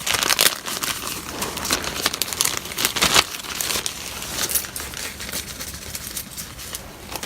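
Crinkling and small clicks of hands handling a replacement laptop battery and its parts at close range, dense at first and thinning out towards the end.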